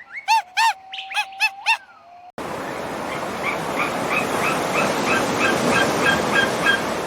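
Animal calls in two edited clips: first a quick series of five sharp, pitched calls over a steady tone, then an abrupt cut to a steady rushing noise like running water with a series of short chirping calls, about three a second.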